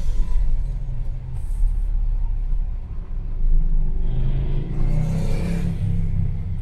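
London bus engine rumbling, heard from on board. About four seconds in it grows louder and rises in pitch, with a hiss over it.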